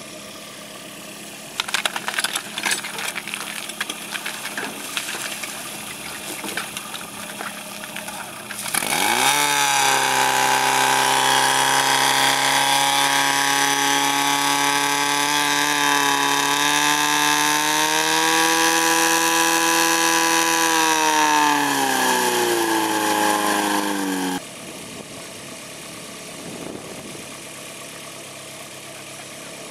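Portable fire pump's engine throttled up sharply at about nine seconds into a loud, steady high-revving run as it pumps water into the attack hoses; before that, irregular clattering of equipment. Near the end the engine note sags in pitch, then cuts off abruptly.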